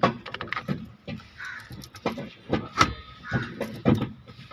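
Irregular sharp clanks and knocks of hand tools and metal parts being handled during repair of a car's steering column.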